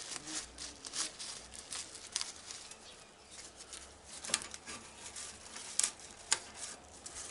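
Tobacco leaf being stripped off its stem with a stem removal tool: the leaf rustles and tears with scattered small crackles and ticks.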